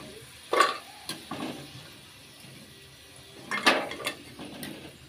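A steel spoon clinking and scraping against a wok-style frying pan while potato fries are turned in hot oil, over a faint sizzle. There are a handful of short sharp clinks, the loudest about half a second in and again a little past three and a half seconds.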